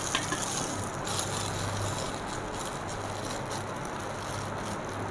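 Steady low hum with an even hiss, and faint rustling of the plastic wrapping as the metal heat diffuser is handled.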